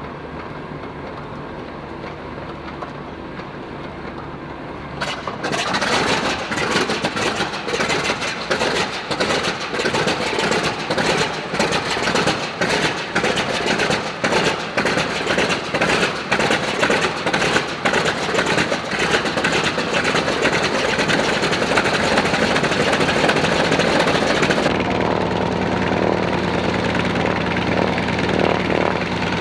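North American T-28 Trojan's radial engine being started: about five seconds of steady cranking as the propeller turns over, then the engine catches suddenly and runs roughly with uneven firing, puffing exhaust smoke. About five seconds before the end it changes to a T-28's radial running smoothly and steadily.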